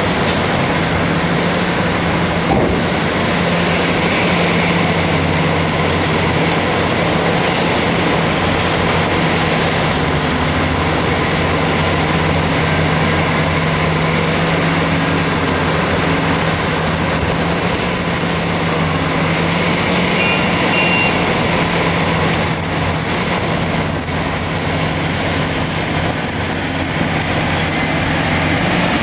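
Heavy diesel engines running steadily: a Caterpillar 375 excavator working under load as it digs rock and loads a Caterpillar 769D off-highway dump truck, with its idling truck alongside. A deep, even engine hum carries throughout, with a brief knock a couple of seconds in.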